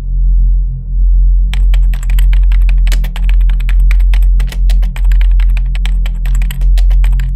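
Rapid computer-keyboard typing clicks, starting about a second and a half in and stopping just before the end, over a loud, deep droning score tone that swells and dips throughout.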